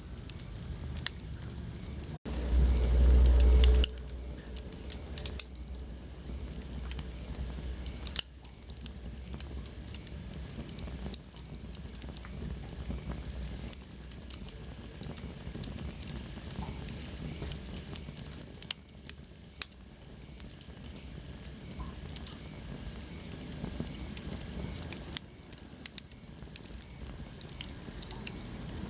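Wood fire crackling and popping in a fireplace: a steady hiss with frequent sharp snaps. A loud low rumble lasts about a second and a half a couple of seconds in, and a faint high whistle slides down in pitch around the middle.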